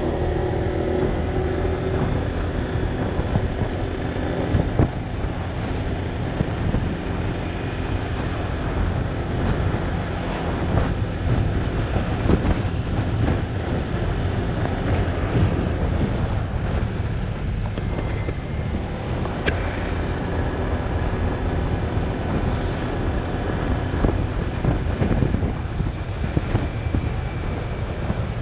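Wind buffeting the microphone over the steady running of a Honda automatic scooter's engine and its tyres on the road, cruising at an even speed.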